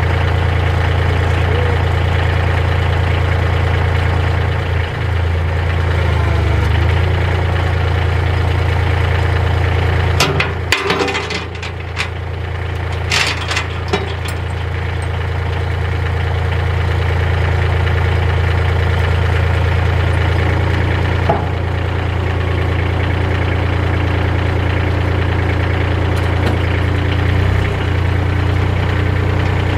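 Compact tractor engine idling steadily, with a cluster of knocks and clicks about ten to fourteen seconds in and another single knock about twenty-one seconds in.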